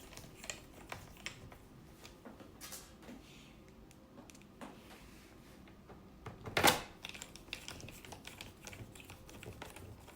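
Light, scattered clicks and taps of a small screwdriver driving screws back into a laptop's plastic bottom cover, with one louder click about two-thirds of the way through.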